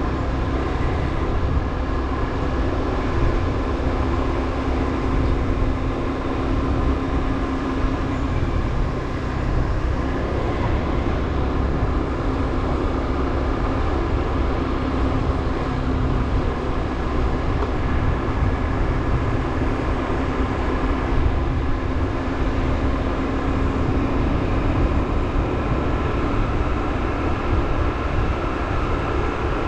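Motorbike riding along a road: steady engine hum with the pitch drifting slightly as speed changes, over continuous wind and road noise.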